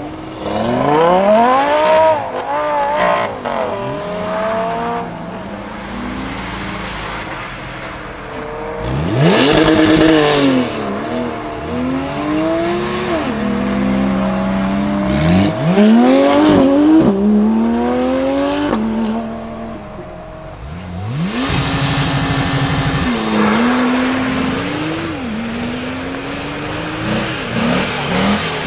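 Supercar engines revving hard and accelerating away, one car after another. Each run climbs in pitch and drops back at the gear changes. The loudest runs come about a second in, about ten seconds in and about sixteen seconds in, with another starting just past twenty seconds.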